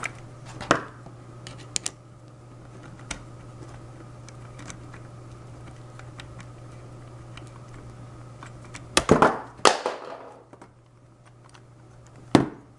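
Scattered clicks and light knocks of the valve robot and its fittings being handled and slid off the valve, with a cluster of louder clatters about nine seconds in and one more sharp knock near the end, over a low steady hum.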